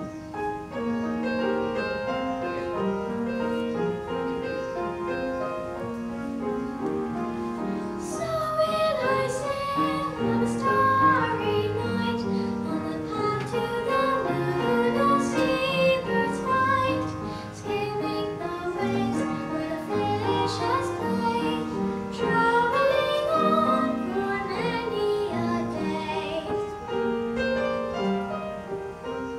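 A girl's solo singing voice with instrumental accompaniment; the vocal line climbs and grows louder about eight seconds in.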